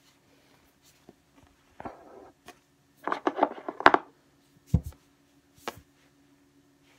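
Crinkled obiage fabric being handled and rustled on a wooden tabletop, loudest in a scratchy burst of rustling about three to four seconds in. A dull knock on the table follows about a second later, then a light click.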